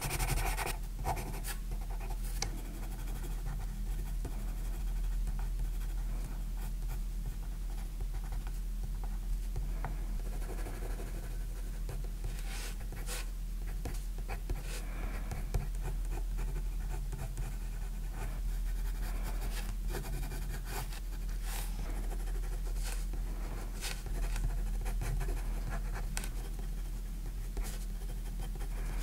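Faber-Castell Art Grip Aquarelle watercolour pencil scratching across drawing paper in many short shading strokes, over a steady low hum.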